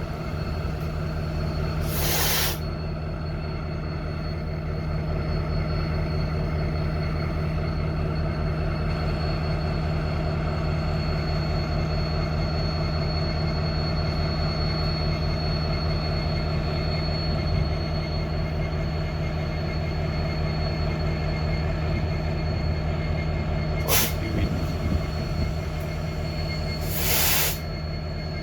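Diesel locomotive engine running at a steady, even pitch, with three short hisses: one about two seconds in and two near the end.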